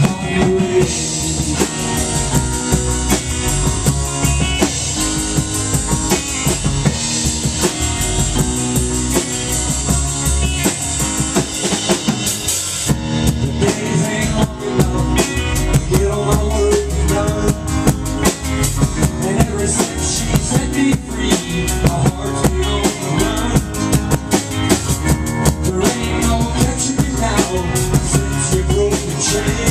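Rock band playing live: a drum kit keeping a steady beat under electric bass and guitars, an instrumental passage with no singing. The drum pattern changes and gets busier about halfway through.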